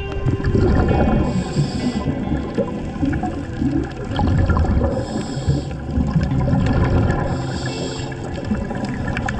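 Scuba breathing heard underwater: three regulator inhalation hisses about three seconds apart, with a rumble of exhaled bubbles between them.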